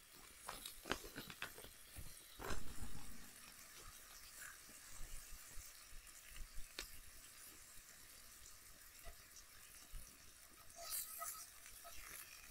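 Bacon sizzling faintly in a skillet over a campfire, with scattered clicks, a knock about two and a half seconds in, and a rustle near the end.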